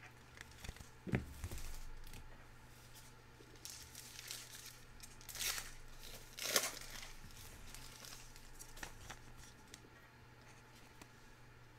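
Foil trading-card pack being torn open and crinkled by hand, in short rustling tears; the loudest come about five and a half and six and a half seconds in, with a light knock about a second in.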